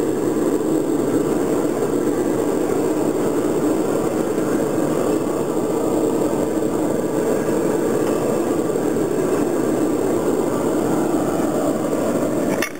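Steady roar of the air blast feeding a charcoal-fired bucket furnace while it melts aluminum, running on without change. A short click comes right at the end.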